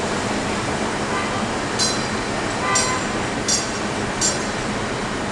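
Steady city street noise with four short, high-pitched squeals spread over a couple of seconds, typical of streetcar wheels grinding on curved track.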